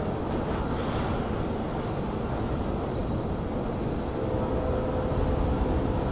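Steady low rumble of railyard machinery and trains, with a faint, steady high-pitched whine over it.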